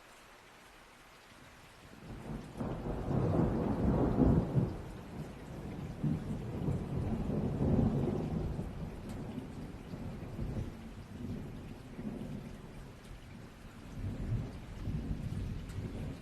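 Rolling thunder over steady rain: a long low rumble starts about two seconds in, peaks twice and fades, then swells again near the end.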